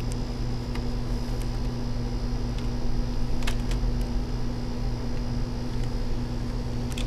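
Steady low hum throughout, with a few faint clicks and taps as a laptop's LCD screen panel is handled and lifted out of its lid.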